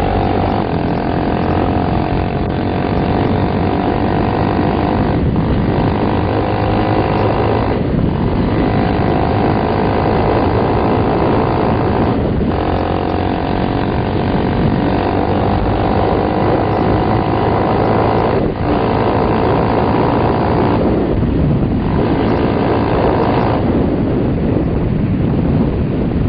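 Motorcycle engine running hard under acceleration, its note breaking briefly about five times as the rider shifts up through the gears.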